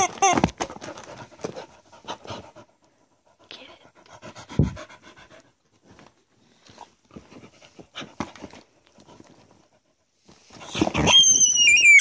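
A dog panting and mouthing a squeaky rubber chicken toy, with short squeaks and clicks and a dull thud a little under halfway through. About a second and a half before the end a long, high-pitched squeal starts and is the loudest sound.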